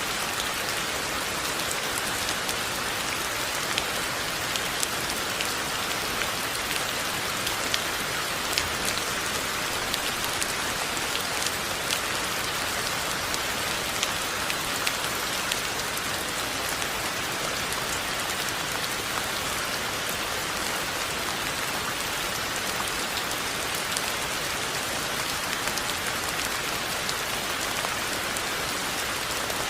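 Steady rain falling, a dense even patter with many individual drops ticking sharply throughout.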